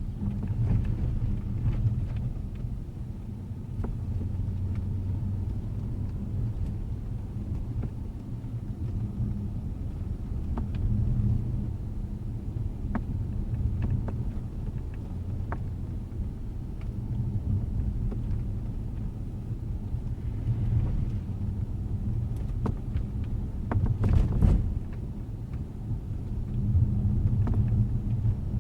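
Inside the cabin of a 2012 Jaguar XJ on the move: steady low road rumble, with sharp pops and clicks at irregular intervals, heaviest about three-quarters of the way through. This is the sunroof popping noise, a fault that has survived several dealership repairs.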